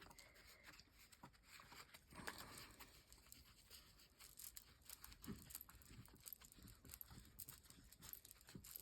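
Faint rustling and light tapping of paper being handled, with scattered small ticks and scrapes.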